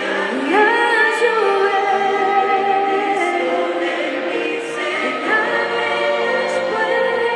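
A worship choir singing a gospel song in harmony, several voices holding long notes and moving between them together.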